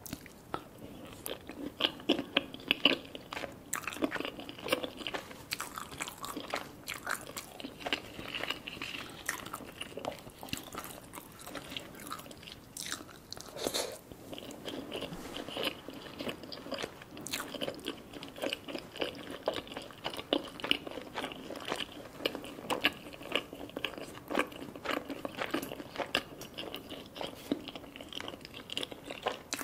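Close-miked chewing of a mouthful of butter chicken in gravy: a steady run of soft, wet clicks and smacks from the mouth.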